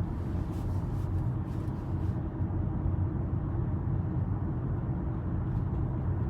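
Steady low road and tyre rumble heard inside the cabin of a moving Tesla Model Y, an electric car with no engine sound.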